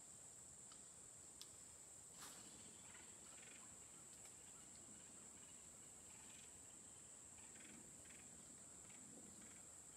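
Insects chirring: a faint, steady high-pitched drone, with a couple of soft clicks in the first few seconds.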